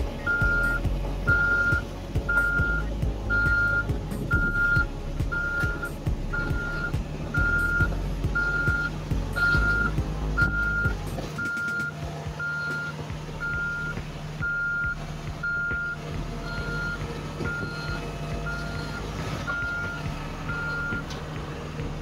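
A heavy construction vehicle's reversing alarm beeping steadily at one pitch, a little more than once a second, over its engine running; the beeping stops near the end.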